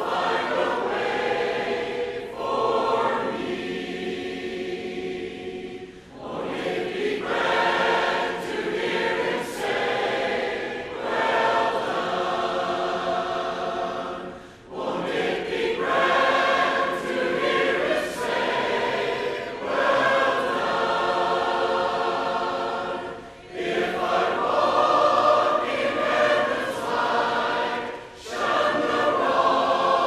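A choir singing a hymn in harmony, in long held phrases with brief breaks every six to eight seconds.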